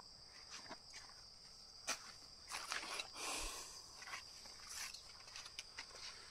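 Steady high-pitched insect drone, with a few soft scuffs and rustles of footsteps.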